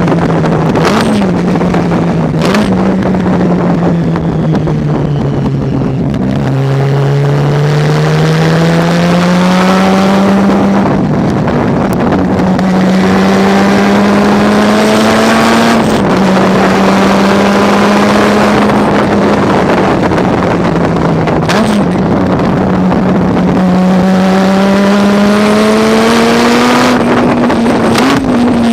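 Racing car engine running hard around the circuit. Its note slowly rises and falls with engine speed, and short quick changes in pitch come every several seconds as the revs change.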